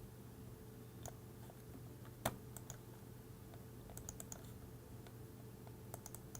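Faint scattered clicks and taps of a 3D-printed plastic enclosure and its circuit board being handled and fitted together, the sharpest a little over two seconds in and small clusters near the middle and end, over a steady low hum.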